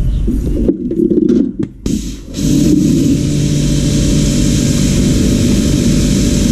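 A motor running steadily with a hum and a hiss, cutting out for about a second and a half near the start and then running on steadily.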